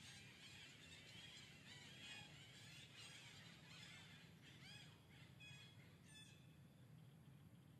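Faint, high-pitched animal chirps and squeaks: a quick series of short rising-and-falling calls that thins out and stops about six seconds in.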